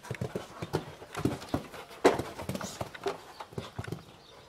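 Hoofbeats of a horse cantering on a sand arena, an irregular run of dull thuds, loudest about two seconds in as it passes close, then growing fainter near the end.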